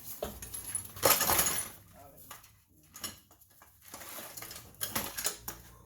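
Metal parts and tools being handled, clinking and knocking, with a louder clattering scrape about a second in.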